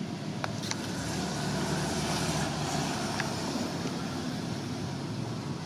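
Steady drone of a passing motor vehicle, swelling a little around the middle and easing off again, with a few faint clicks.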